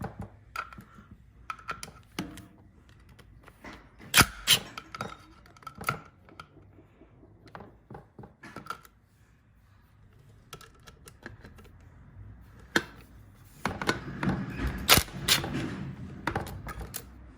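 Metal tools clicking and knocking against the motorcycle engine's front cover as bolts are worked out, irregular light taps with a busier, louder clatter near the end.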